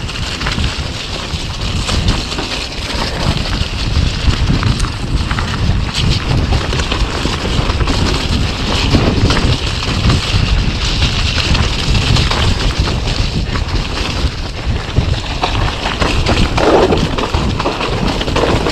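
Wind buffeting an action camera's microphone as a mountain bike rides fast down a muddy trail, with the rumble of tyres over the ground and scattered knocks and rattles from the bike on the rough surface.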